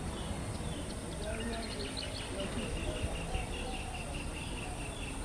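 A bird calling in a rapid series of short high chirps, about five a second, from about a second and a half in, over a low background rumble and faint distant voices.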